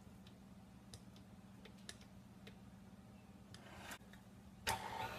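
Faint scattered clicks and scrapes of a silicone spatula on a stand mixer's paddle and bowl over a low steady hum, then a sharp clunk near the end as the mixer's tilt-head is lowered into place.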